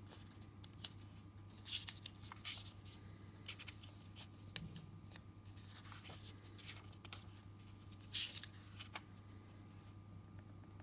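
Paper pages of a hardcover book turned by hand: a few soft rustles and flicks of paper, the loudest about two seconds in and again toward the end, over a faint steady hum.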